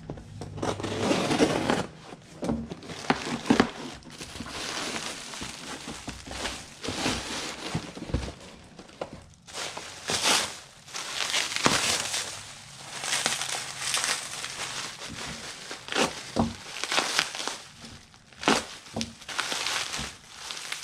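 A cardboard mailing box being cut and opened with a utility knife, then a plastic bag and inner wrap crinkling and rustling in irregular bursts as an item is unwrapped by hand.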